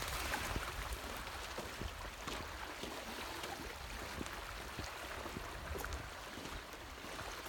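Small waves lapping on a pebbly shore, a steady wash of water with a low rumble of wind on the microphone.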